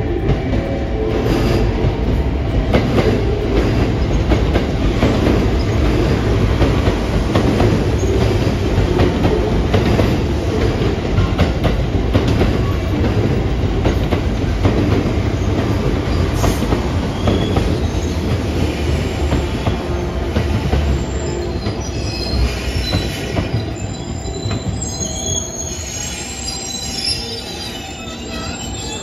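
A train running past close by, with a heavy rumble and wheels clacking over rail joints. In the last several seconds a high-pitched squeal rises from the train as the rumble eases off.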